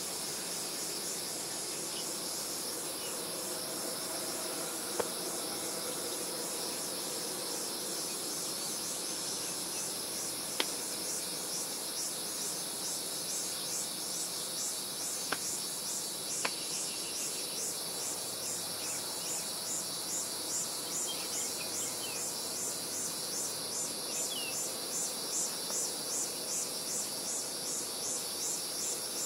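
Insects chirring in a steady high buzz, with a pulsing chirp on top that grows stronger through the second half. A few sharp clicks stand out now and then.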